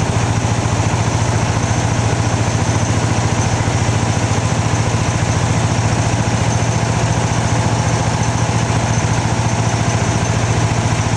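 Mobile rice mill's engine and milling machinery running steadily while rice is fed into the hopper.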